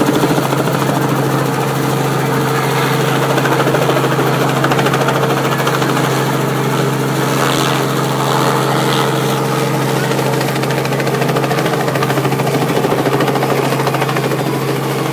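Small two-bladed helicopter flying low overhead, its rotor and engine making a loud, steady drone.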